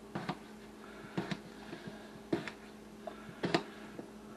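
Kitchen knife dicing a potato on a plastic cutting board: sharp clicks of the blade striking the board about once a second, several in quick pairs.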